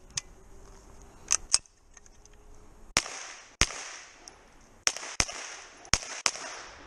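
Pistol-caliber carbine fired in quick pairs of shots at targets, each shot a sharp crack trailed by a short echo. The pairs come about a third to half a second apart, with the loudest shots from about three seconds in.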